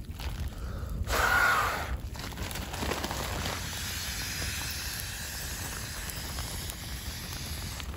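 Sleeping-pad pump sack pushing air into an inflatable pad: a short, loud rush of air about a second in, then a steady hiss of air flowing into the pad.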